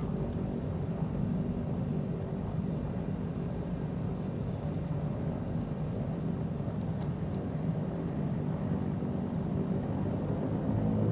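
Engines and propellers of a Beechcraft King Air twin turboprop heard from inside the cabin while taxiing, a steady drone with a low hum, growing a little louder near the end.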